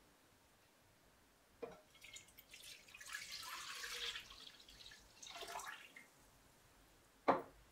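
Milk poured from a glass measuring jug into a granite-coated pot, splashing for about two seconds, then a shorter second pour. There is a faint click before the pour and a sharp knock near the end, which is the loudest sound.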